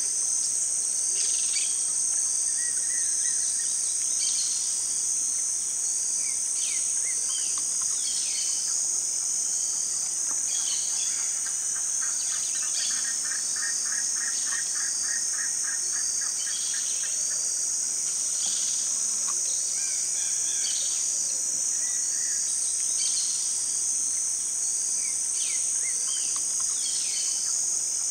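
Steady high-pitched chorus of insects, with many short falling bird chirps over it and a rapid trill lasting several seconds in the middle.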